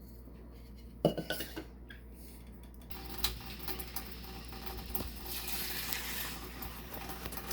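Kitchenware clinking against the Instant Pot's metal inner pot: a quick cluster of clinks about a second in, then several seconds of steady rattling as an ingredient is measured into the pot.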